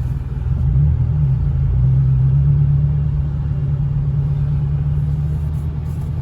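Subaru WRX's turbocharged flat-four engine pulling the car away from a stop, heard from inside the cabin: a low engine note that rises over the first two seconds and then holds steady at cruise. No seatbelt chime sounds with the driver's belt unbuckled, since the chime has been disabled.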